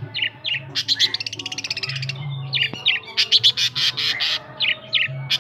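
Long-tailed shrike (cendet) singing: short downward-sliding whistles repeated again and again, broken up by bursts of fast chattering trills. Its song is full of mimicked calls of other birds.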